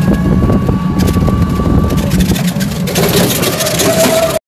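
Engine and road noise of a moving vehicle heard from on board, a steady low rumble with clatter and wind on the microphone; it cuts off suddenly near the end.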